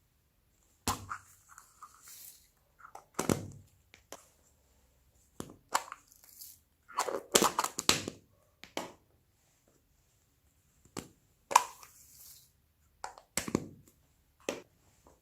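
Slime being squeezed and mixed by hand, giving irregular sharp pops and short crackles with quiet gaps between them.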